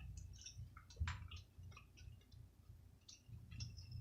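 Faint, scattered wet clicks and squishes of someone eating sauce-covered seafood by hand: chewing, lip smacks and the handling of food.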